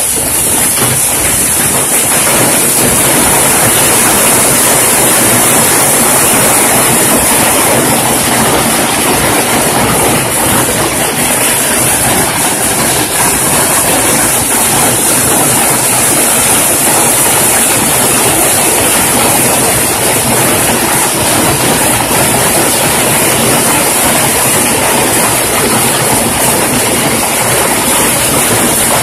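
Heavy hail pelting down: a loud, steady, dense clatter of small hailstones striking asphalt pavement.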